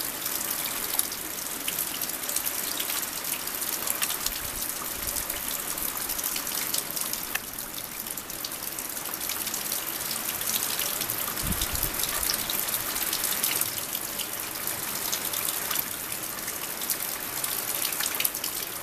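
Floodwater rushing and pouring, a steady hissing wash of water.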